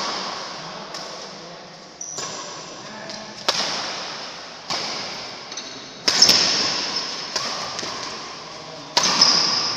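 Badminton rackets striking a shuttlecock back and forth in a doubles rally: about seven sharp hits, roughly one every second and a bit, each echoing in the large hall.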